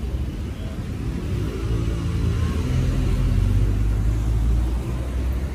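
A car engine accelerating close by: a low rumble that swells, with its pitch climbing over a couple of seconds mid-way, then easing off.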